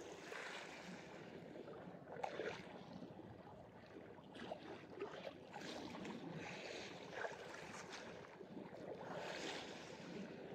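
Faint sea ambience: small waves lapping and wind, rising and falling in soft swells.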